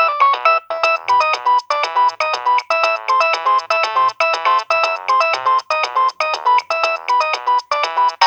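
Nokia 6030 ringtone playing through the phone: a fast melody of short notes in quick, even succession.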